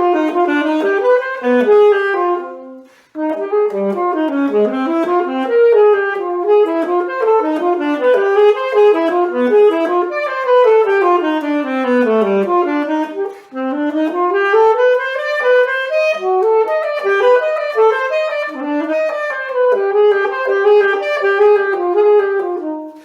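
A solo wind instrument, unaccompanied, playing quick running melodic lines. There is a short break about three seconds in, a long descending run, and after a brief pause a rising run.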